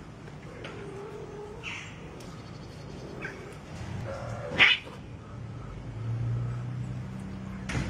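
Several cats meowing in turn: a low drawn-out call near the start, short higher meows, and one loud meow about halfway through. A low steady hum comes in during the second half.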